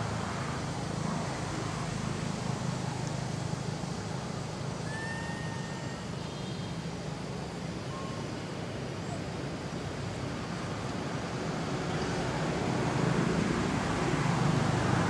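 Steady low outdoor background rumble, growing a little louder near the end, with a few faint short chirps about five and eight seconds in.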